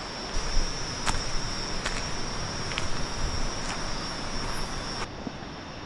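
A night insect trilling on one steady high pitch, which cuts off abruptly about five seconds in, over a steady hiss, with a few faint clicks.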